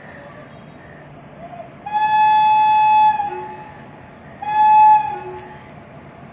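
Indian Railways electric locomotive sounding its horn twice as it pulls in: a single-pitched blast of about a second, then a shorter, slightly louder one, over the steady rumble of the moving train.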